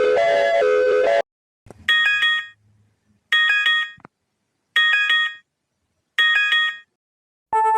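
Synthesized emergency alert tones. A repeating two-note jingle cuts off about a second in. Four short chime-like beeps follow, each a chord of several high notes, about one and a half seconds apart. Near the end a new alert tone starts, alternating steadily between a high and a low note.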